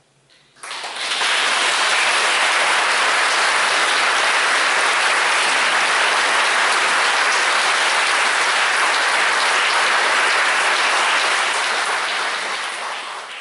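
Audience applauding, dense and steady, starting within the first second and fading out at the very end.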